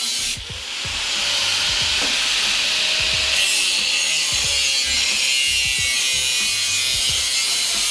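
Angle grinder cutting through a stainless-steel exhaust tube, a loud, steady high-pitched grinding hiss.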